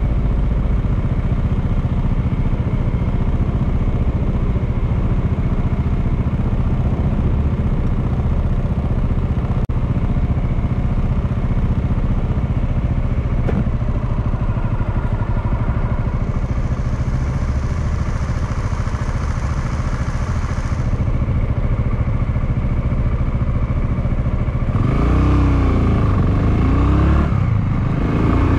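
Honda Clubman motorcycle engine running steadily while riding, with road and wind noise. Near the end it gets louder and the engine pitch swings down and back up twice as the revs change.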